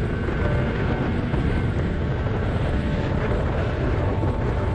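Snowmobile running steadily at high cruising speed, close to 60 mph, a continuous engine and wind noise with no change in pace.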